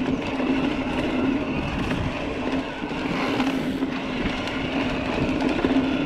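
Electric mountain bike rolling along a hard-pack dirt trail: the Bosch mid-drive motor hums steadily under the noise of the tyres and wind, with small knocks and rattles from the bike over the rough ground.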